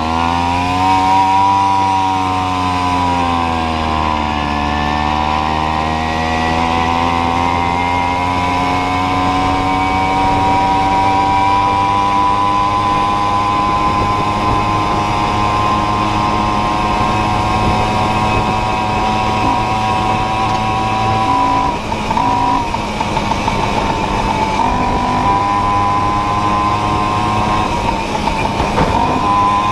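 Tomos Targa moped's small single-cylinder two-stroke engine running under way. Its pitch climbs as it pulls away, dips briefly about four seconds in, then holds a steady, slowly rising note. Near the end the note breaks and drops a few times.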